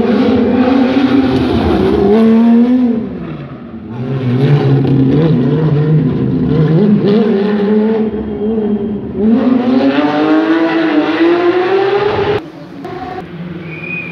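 Rally car engine under hard throttle on a tarmac stage: the revs climb and fall with each gear change, dip as the driver lifts off about three seconds in, then build again. A long rising pull of revs from about nine seconds in ends with the sound dropping away sharply near the end.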